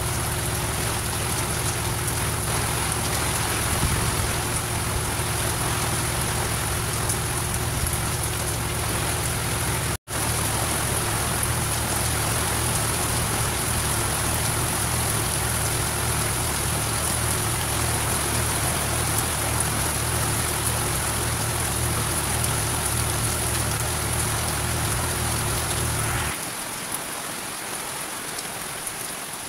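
Steady rain falling on a paved yard, an even hiss of drops, with a low rumble underneath that stops near the end.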